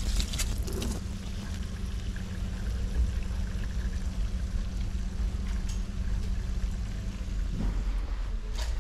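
Steady hum of a running machine under a rushing noise, with a few clicks at the start; the hum cuts off about a second before the end.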